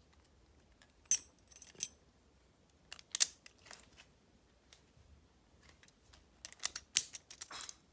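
Small plastic and metal Beyblade Burst parts clicking and clinking as they are handled and fitted together. A few separate clicks come first, then a quicker run of clicks near the end.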